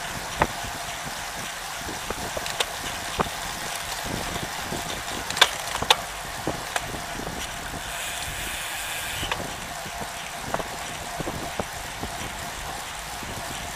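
Steady rush of wind and road noise picked up by a camera mounted on a road bike riding in a group, broken by irregular sharp clicks and knocks as the bike runs over the road surface, the two loudest about five and a half and six seconds in.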